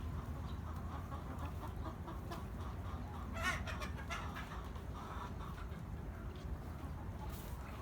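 Chickens clucking in short repeated calls, with one louder call about three and a half seconds in.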